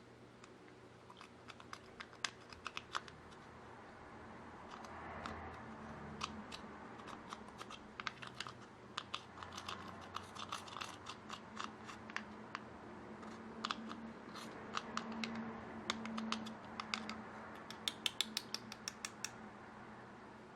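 Slime and makeup being handled close to the microphone: many sharp, irregular clicks and pops, thickest near the end, over a faint steady hum.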